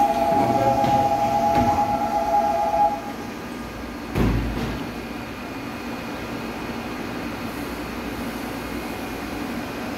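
A steady two-tone warning signal sounds for about three seconds as the doors close, over the hum of a stopped electric subway train. About four seconds in there is a single low thud, and then the train's steady hum continues while it stands at the platform.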